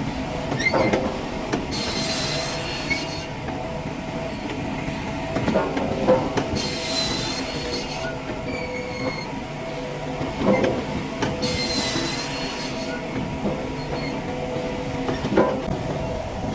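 Wood-cutting saw machinery running with a steady whine, making a cut with a bright hiss about every five seconds, with sharp knocks of timber in between.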